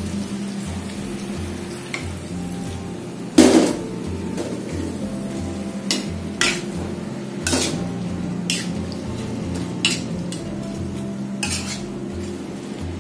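Steel spatula stirring vegetables and broth in a non-stick wok, scraping and knocking against the pan in a string of sharp clanks, the loudest about three and a half seconds in. A low steady hum runs underneath.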